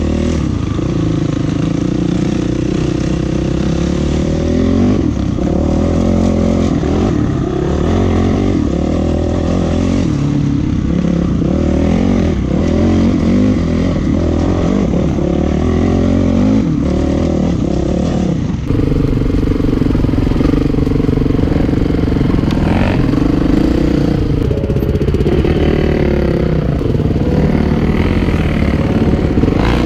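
Enduro dirt bike engine running under load as it is ridden, the revs rising and falling again and again with the throttle and gear changes. The sound changes abruptly about two-thirds of the way through.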